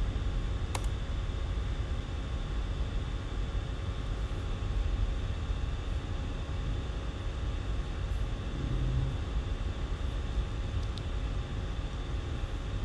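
Steady low background rumble, with a single sharp click just under a second in, likely a computer key press.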